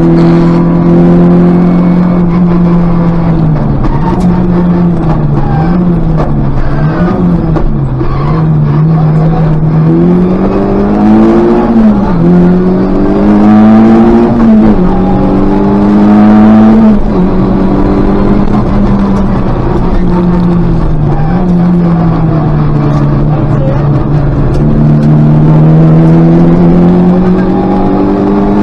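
Škoda Favorit rally car's four-cylinder engine heard from inside the cabin on a stage run, held at high revs and sweeping up through several hard accelerations with drops at the gear changes, easing briefly in between.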